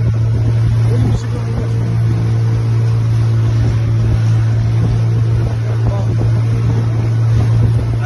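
A small wooden boat's motor running steadily under way, a constant low hum, with water rushing and splashing along the hull and wind on the microphone.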